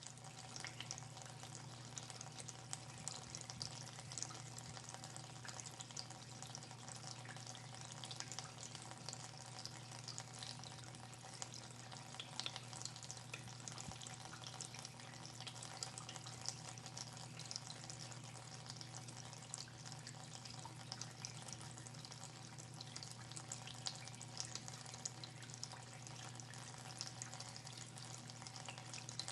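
Water flowing through a pipe: a steady rushing hiss with fine crackling and trickling, over a low steady hum.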